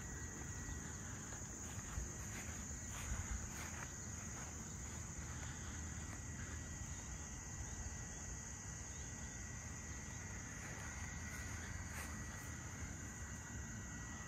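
A steady, high-pitched chorus of crickets, with a few soft footsteps about two and three seconds in.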